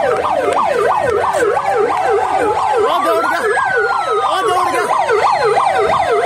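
Two vehicle sirens sounding at once: one in a fast yelp, rising and falling about three times a second, the other in a slower wail that climbs about three seconds in and then sinks back.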